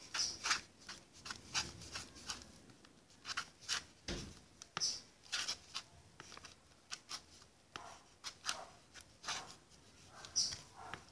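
Spoon stirring fluffy slime in a bowl: irregular clicks and scrapes against the bowl as borax solution is worked into the glue and shaving cream and the slime begins to form.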